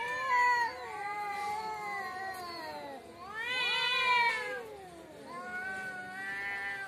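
Two domestic cats caterwauling at each other in a face-off: long, wavering yowls that rise and fall and overlap, the threat calls that come before a cat fight. The yowling swells loudest near the start and again about halfway through.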